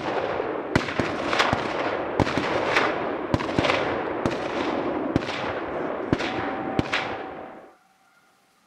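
A rapid series of gunshots, about one or two sharp bangs a second, each with a trailing echo, over a dense continuous crackle; the sound cuts off abruptly near the end.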